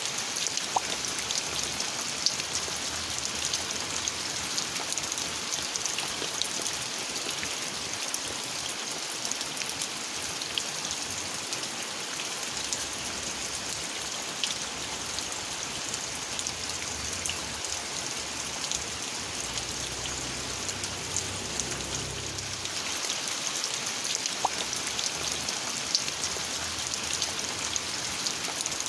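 Steady rain falling, a continuous hiss with single drops ticking now and then.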